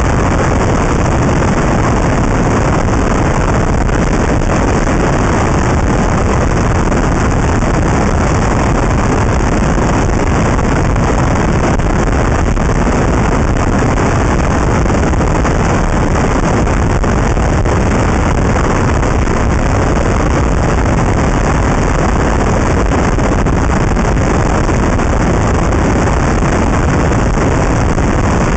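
Steady, loud wind rush on the microphone of a camera clamped to the outside of a moving car, mixed with road and tyre noise.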